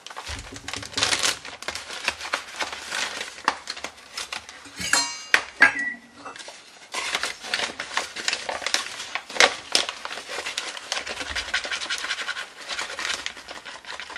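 Zip-top plastic bag of flour rustling and crinkling as it is handled, with a short ringing metallic clink about five seconds in and a few knocks on a stainless steel mixing bowl.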